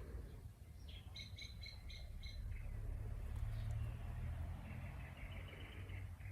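Rubber squeaky ball squeaking in quick runs as a young boxer dog chews it: about six short squeaks a second in, then a longer run near the end. A steady low rumble runs underneath.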